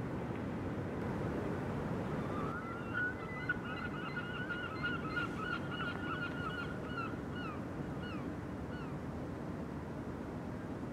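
Bird calling, a fast chattering run of notes from about two seconds in, then several separate falling calls, over a steady low rumble.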